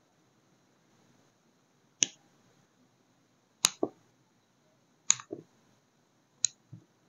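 Small hard objects being handled on a tabletop while making a wax seal: four sharp clicks about a second and a half apart, the last three each followed by a softer, lower knock.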